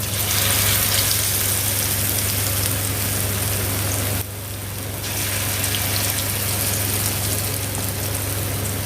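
Moong dal and onion pakoras deep-frying in hot mustard oil in a kadai: a steady sizzling hiss that drops briefly about four seconds in.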